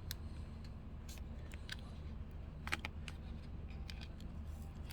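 Fingers picking and tapping at a small cardboard blind box while trying to open it: scattered light clicks and taps over a steady low hum.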